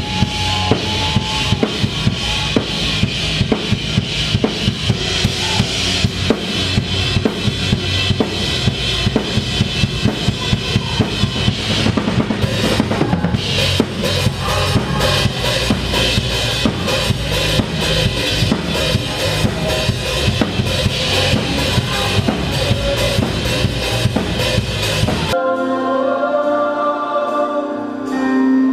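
Live rock-style worship band playing loudly, the drum kit driving a steady beat with kick and snare over bass, guitars and keys. Near the end it cuts suddenly to voices singing long held notes over softer accompaniment.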